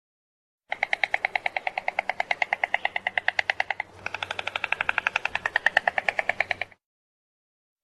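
Stork clattering its bill: a fast, even rattle of about a dozen clacks a second. It comes in two runs with a brief break about four seconds in, and cuts off abruptly.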